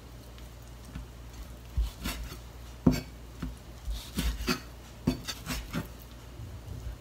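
Chef's knife cutting thinly sliced raw beef on a plastic cutting board: a string of short, irregular knocks as the blade strikes the board, about fifteen in all, coming thickest in the middle seconds.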